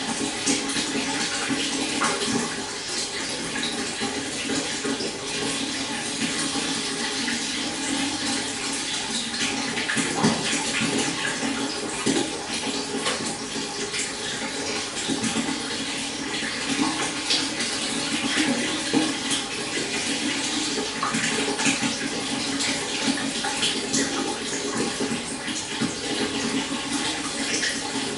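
Water flowing and splashing steadily, a continuous rush with many small bright splashes, like a burbling stream.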